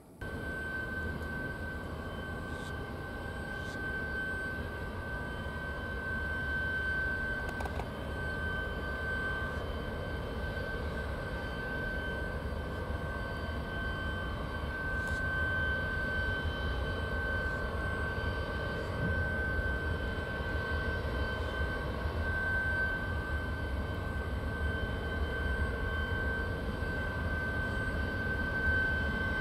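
Airbus A330-300's turbofan engines running during a ground engine test: a steady high whine over a low rumble, slowly growing a little louder.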